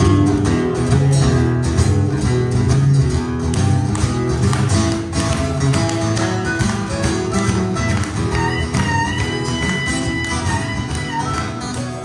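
Acoustic guitars strumming the instrumental opening of a country song, with a harmonica playing over them; a long high held note comes in about eight and a half seconds in and lasts about three seconds.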